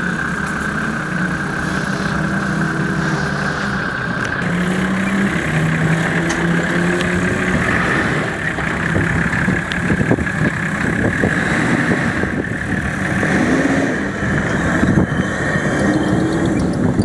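Off-road 4x4 engine running, its revs rising and falling, with a steady high whine and scattered knocks and clatter as the vehicle works over rough ground.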